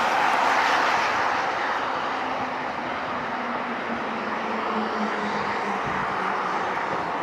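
CSX double-stack intermodal freight train passing below, a steady rolling rumble that fades over the first couple of seconds and then holds.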